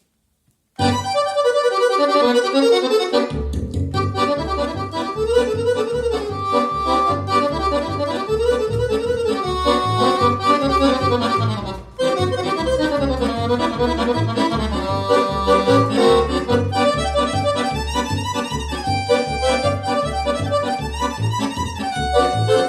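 Accordion playing an instrumental tune, starting about a second in. The melody plays alone at first, then a steady bass accompaniment joins about three seconds in. There is a brief break near the middle.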